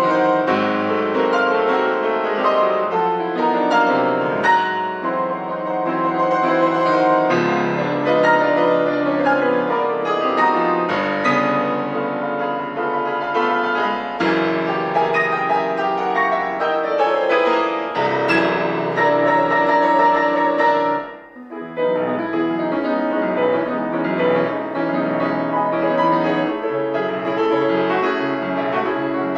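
Grand piano played solo: dense, fast classical sonata passagework with quick descending runs, breaking off for a moment about three-quarters of the way through before carrying on.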